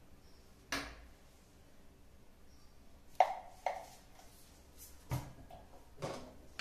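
A spoon and serving dishes clinking and knocking, about five separate short strikes, the loudest about three seconds in; the one about five seconds in is a duller, deeper thump.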